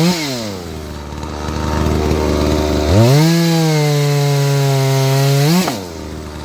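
Farmmac F380W 72 cc two-stroke chainsaw. At full throttle it drops straight to idle, idles for about three seconds, revs back up and holds full throttle for about two and a half seconds, then drops back to idle near the end.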